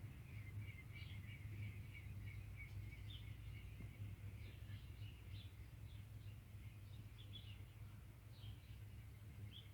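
Small birds chirping in a garden: many short, quick chirps overlapping throughout, faint, over a steady low hum.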